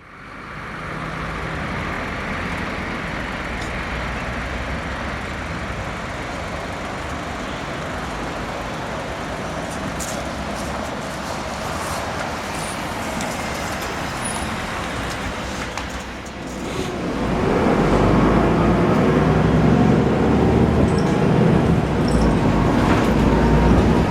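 Solaris Urbino 18 articulated city bus running with a steady road and engine noise. About two-thirds of the way in, after a brief dip, the engine gets markedly louder, with a heavy low rumble and a slowly shifting engine note as the bus pulls away under load.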